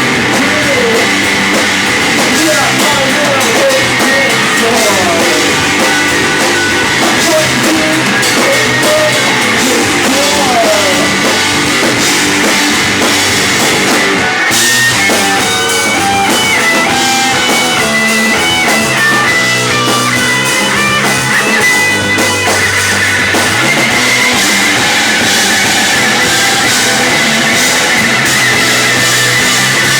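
Loud rock music with a drum kit and guitar, playing steadily.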